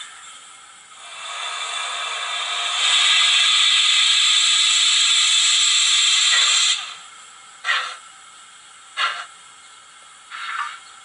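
Sound-fitted model NER Class O steam locomotive (YouChoos sound decoder) giving a long steam hiss that stops suddenly, then three slow exhaust chuffs about a second and a half apart as the engine moves off in reverse.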